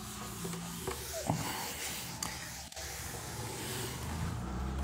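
Felt duster rubbing across a whiteboard, a steady scrubbing hiss that thins out near the end.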